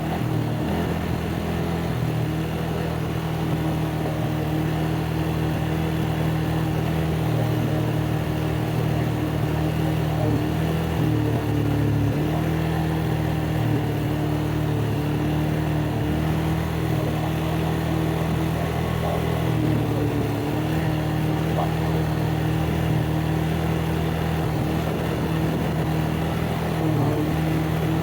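ATV engine running steadily while riding, its pitch dipping briefly a couple of times as the throttle eases off.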